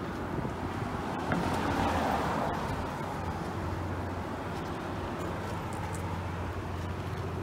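Street traffic: a steady low hum, with a vehicle passing by that swells and fades about a second and a half in.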